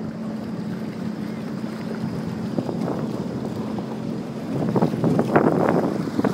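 Jet ski engine running with a steady hum under wind buffeting the microphone; about four and a half seconds in it gets louder and choppier.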